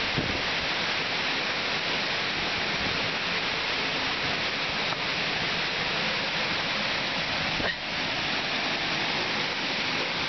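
Waterfall: a steady rush of falling water, with a brief click about three-quarters of the way through.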